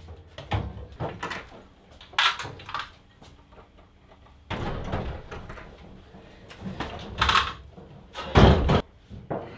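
Clunks and knocks of a metal mechanic's tool chest being moved and stacked: the wheeled bottom cabinet pushed into place and the top box set onto it, with the loudest, heavy clunk near the end.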